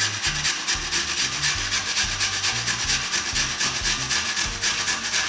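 Peeled raw potato scraped up and down on the finest holes of a metal box grater, a rasping scrape repeated in quick, even strokes.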